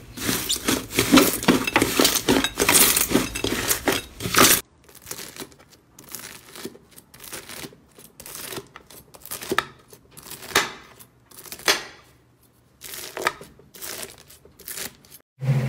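Slime being squeezed and pressed by hand, crackling and popping: dense, loud crackling at first, then, after an abrupt cut about four and a half seconds in, sparser and quieter pops and crackles.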